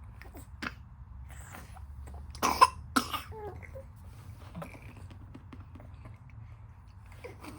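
Two short coughs about half a second apart, a little past the middle, followed by brief small vocal sounds.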